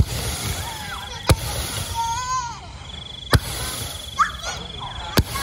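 A Z121 ground fountain firework hissing and firing its stars upward, each launch a sharp pop, four pops a second or two apart.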